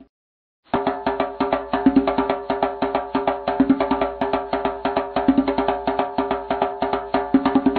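Background music with a fast, busy percussion beat of wood-block-like clicks over sustained tones; it drops out completely for a moment at the start, then comes back and runs steadily.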